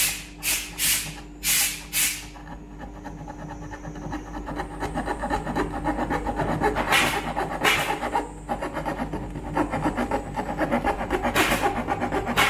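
Saw cutting through a veneered wooden panel: a few separate rasping strokes about twice a second at first, then from about four seconds in a continuous fast gritty cutting that grows louder, with a few louder scrapes.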